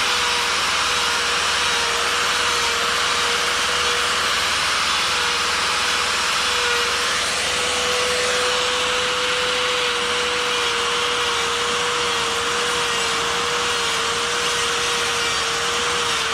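Die grinder with a flame burr running at high speed, cutting fur lines into wood: a steady high whine over the hiss of the burr grinding, its pitch wavering slightly as the burr is pressed into the wood.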